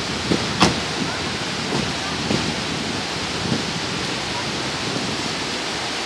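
Large waterfall in heavy rainy-season flow, a steady rushing noise of falling water, with a single sharp click about half a second in.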